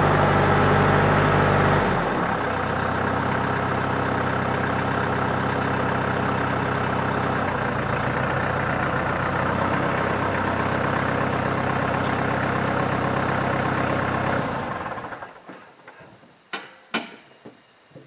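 Compact farm tractor engine running, its note dropping about two seconds in and then idling steadily before it is shut off about 15 seconds in. A few sharp knocks follow.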